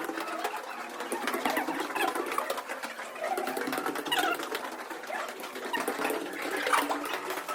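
Footsteps and shuffling on stairs in a small, echoing stairwell: a steady patter of soft knocks, with a few short squeaky sounds.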